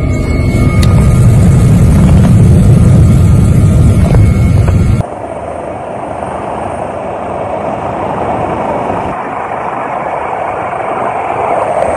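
Helicopter cabin noise, a loud steady low rumble from the rotor and engines. About five seconds in it cuts abruptly to a quieter, steady rushing noise.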